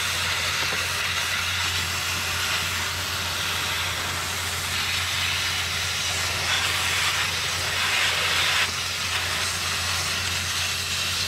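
Water spraying with a steady hiss from a Radiator Genie wand fed by a garden hose, blasting through the fins of an ATV radiator to flush out packed dirt. The spray grows louder for a few seconds around the middle, then drops back abruptly.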